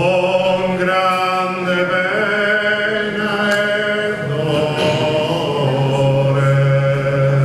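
Sardinian cuntzertu: four male voices singing a cappella in close harmony, holding long sustained chords over a low bass voice, which drops in pitch about four seconds in.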